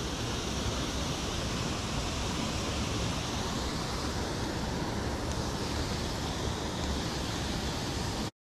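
Water pouring over a small concrete spillway into a pool below, a steady rushing noise that cuts off suddenly near the end.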